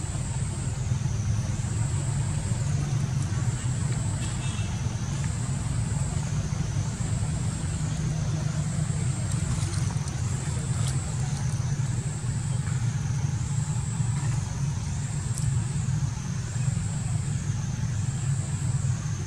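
Outdoor ambience: a steady low rumble with a high-pitched drone that rises and falls in pitch about every two seconds.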